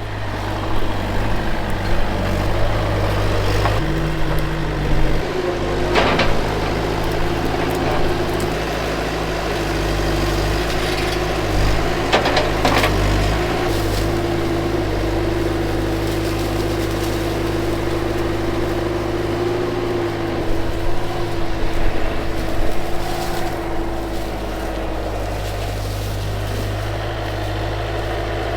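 2004 Bobcat skid steer's diesel engine running steadily under working load, its note shifting a few seconds in as the machine works. A few sharp cracks stand out about six and twelve seconds in.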